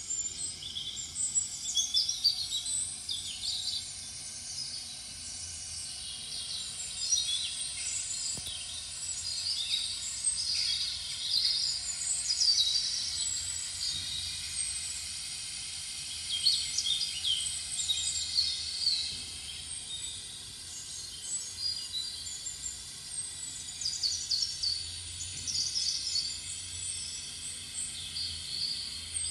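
Songbirds chirping and twittering: many short, high chirps in quick overlapping runs, over a faint steady hiss.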